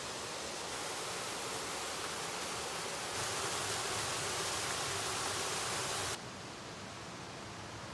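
Small waterfall cascading over rock into a pool: a steady rush of falling water, louder from about three seconds in and dropping suddenly about six seconds in.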